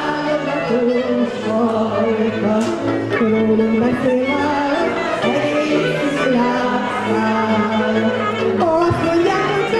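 A woman singing a Hungarian nóta (folk-style song) into a microphone, accompanied by a Gypsy band of violins, cimbalom and double bass.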